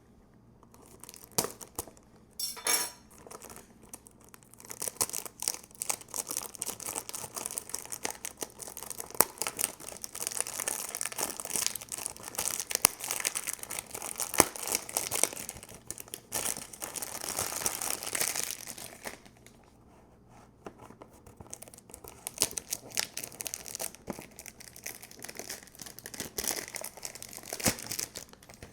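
Perfume box packaging being unwrapped and opened by hand: crinkling and tearing of the wrapping with rustling and handling of the box. There is a long dense run of crackling, a quieter pause after the middle, then more rustling near the end.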